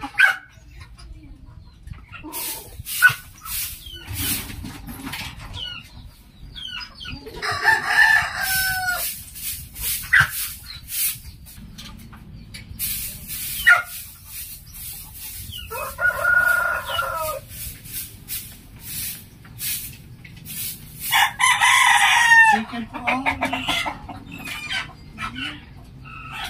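Rooster crowing three times, each crow lasting a second or two, with hens clucking in between. Quick scratchy strokes of a broom sweeping the dirt floor of the pen come in runs between the crows.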